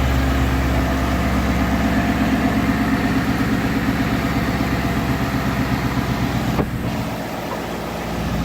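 2017 Ford engine idling steadily, freshly running a Ford Performance PP2 tune and sounding healthy. A short click comes about six and a half seconds in, and the engine is a little quieter for a second or so after it.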